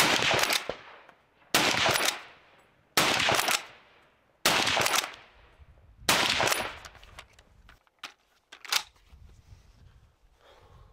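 Five .30-06 hunting rifle shots fired in quick succession, about one and a half seconds apart, each followed by a fading echo. A few fainter sharp clicks follow near the end.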